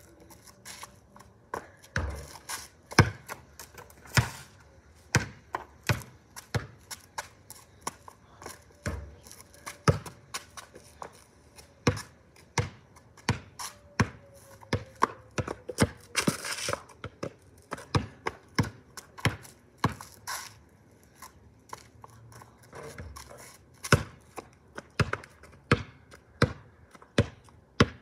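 Basketball bouncing on a concrete driveway as it is shot and dribbled: sharp slaps about one to two a second, a few of them heavier thuds. Under them a faint, steady outdoor warning siren tone that bends slightly in pitch and fades about halfway through.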